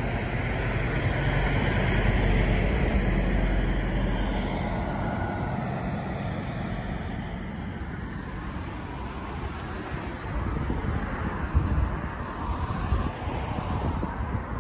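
Road traffic noise: a vehicle's rumble swells over the first few seconds and then fades away, with an uneven low rumble near the end.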